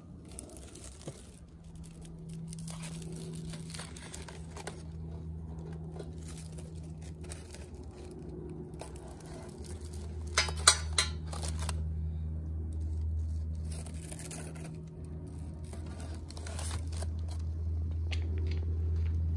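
Aluminium foil around baked potatoes crinkling as they are handled with metal tongs and set into a roasting tray, with three sharp clacks close together about ten seconds in. A steady low hum runs underneath.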